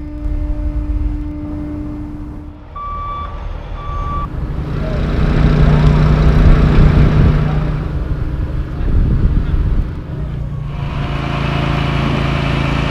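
Heavy equipment engines running, with a backup alarm beeping twice about three seconds in. The engine sound changes abruptly a few times, and is loudest in the middle.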